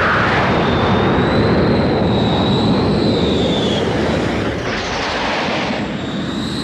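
Fighter jet engines in flight: a loud, steady rush with a thin high whine that wavers in pitch. The whine fades out a little before four seconds in, the rush swells about a second later, and the whine comes back near the end.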